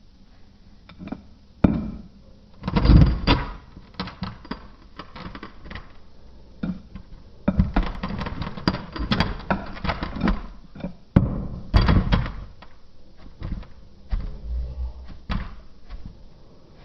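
Kinetic sand being dropped and squished, giving soft thuds and crumbly, gritty handling noise in irregular bursts. The heaviest thud comes about three seconds in, with longer stretches of crumbling around eight to ten seconds and again near twelve.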